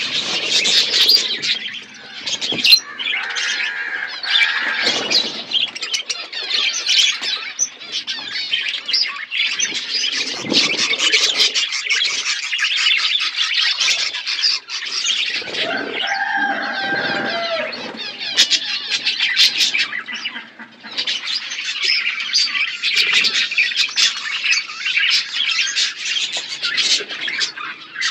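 A flock of budgerigars chattering and warbling continuously in quick, high chirps, with one lower, drawn-out call about halfway through.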